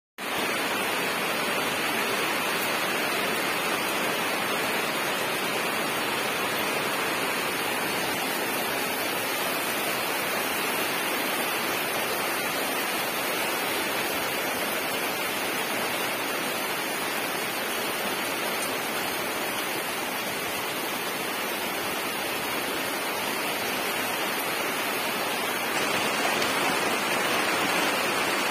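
Heavy rain pouring down in a steady, even hiss, growing a little louder near the end.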